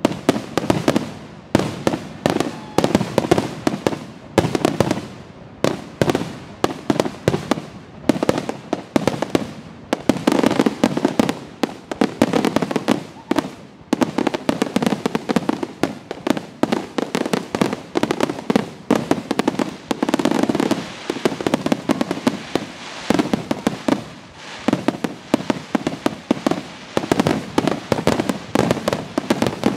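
Aerial fireworks shells bursting in a rapid, continuous barrage, several loud bangs a second overlapping with crackle, with no pauses between them.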